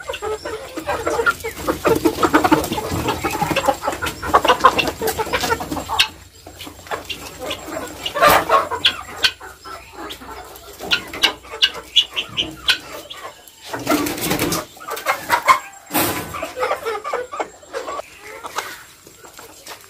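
A flock of farm chickens clucking and calling continuously, many short overlapping calls, with a few sharp knocks about eight, fourteen and sixteen seconds in.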